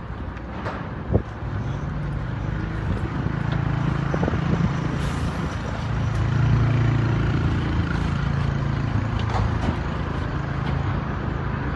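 A truck engine running steadily, its low drone swelling about six seconds in and easing back.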